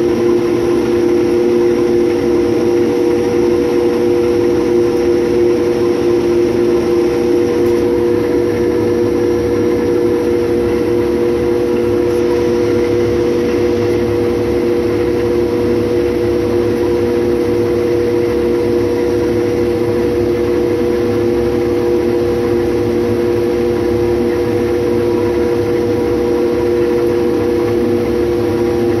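6130 combine harvester running steadily while cutting wheat, a loud constant drone with a strong, even whine on top. The machine is labouring in tough, green-stalked straw, not very happy with it.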